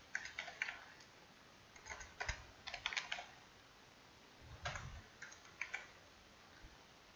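Computer keyboard typing in several short bursts of keystrokes, with pauses between them.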